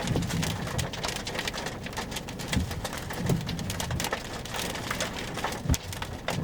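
Rain striking the car's roof and windshield, heard from inside the cabin: a dense, irregular patter of drop impacts.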